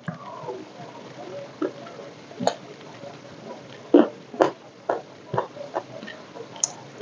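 Close-up chewing of crispy food, a crunchy fried omelette and crackers, with irregular crunches about once or twice a second.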